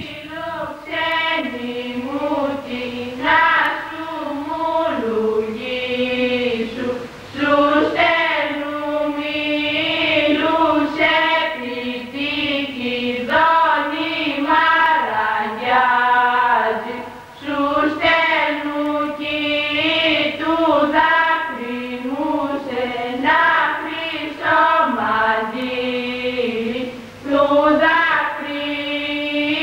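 Unaccompanied singing: a slow melody sung in long phrases of held, wavering notes that glide from pitch to pitch, with short breaks between phrases.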